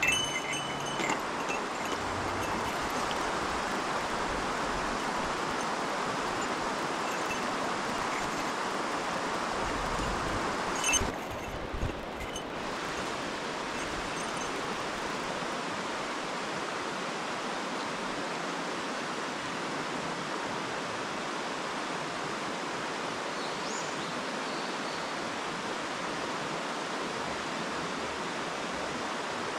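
Mountain stream rushing: a steady noise of flowing water, with a brief dip about eleven seconds in.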